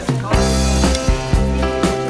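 Background music with held notes and a regular beat, starting just as the speech before it ends.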